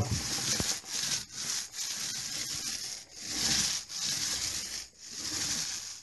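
Paint roller loaded with emulsion rolling up and down a plastered wall: a wet, rubbing hiss in a run of strokes, each swelling and falling away. This is the final coat going on.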